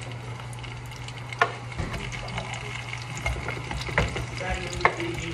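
Oil frying in a pot as chopped vegetables are scraped off a wooden cutting board into it with a chef's knife, with a few sharp knocks of the knife against the board over a steady low hum.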